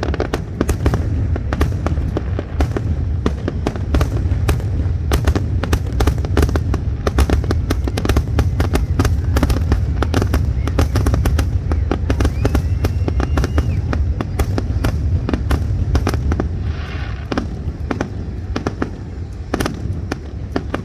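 Fireworks display: a dense, rapid barrage of shell bursts and crackles over a continuous low rumble of booms, easing off and thinning out near the end.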